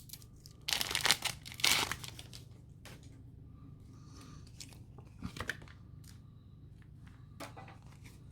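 Pokémon booster pack's foil wrapper being torn open, with two short rips about one and two seconds in, followed by faint rustling and light clicks of the cards being handled.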